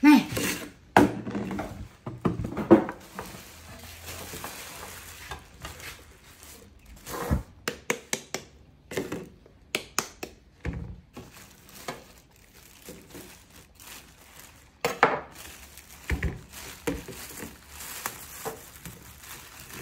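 A thin plastic bag rustling and crinkling as it is handled, with scattered knocks of things set down and moved on a wooden tabletop.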